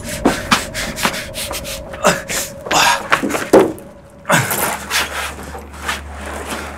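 A woman panting and gasping hard, a run of short breaths and falling gasps: out of breath and frightened after being hurt. A faint steady tone gives way to a low hum about two-thirds of the way through.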